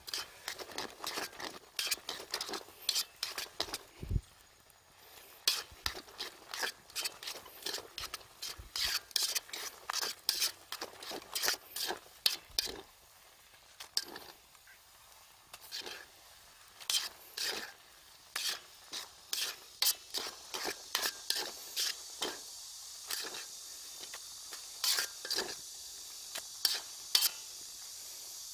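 A utensil scraping and clinking against a cooking pan as food is stirred and tossed, many quick irregular strokes. Over the last several seconds a steady sizzling hiss builds up underneath.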